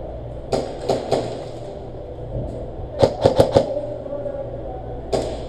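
Airsoft guns firing: sharp pops, a few single shots, then a quick burst of about five shots about three seconds in, and two more single shots near the end.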